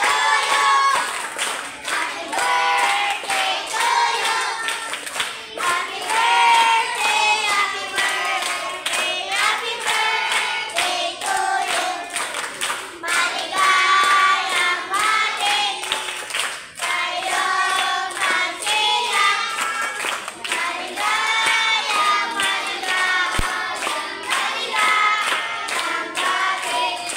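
A group of children singing together and clapping along.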